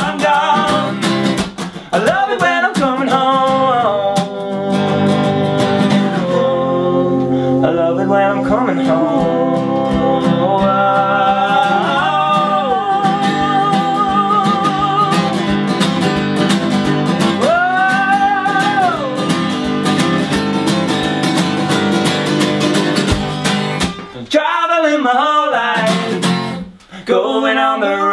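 Live acoustic folk song: two acoustic guitars strummed and picked while two men sing, with long held notes in the melody. Near the end the guitars briefly drop out, leaving the voices.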